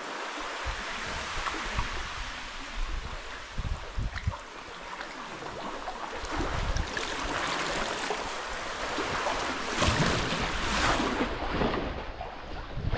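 Sea water lapping and splashing around a sea kayak and the rock walls as it is paddled, with the slosh of paddle blades dipping in. The splashing grows louder after about seven seconds.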